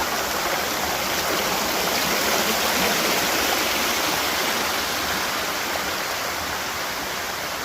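Waterfall rushing steadily, a continuous even roar of falling water.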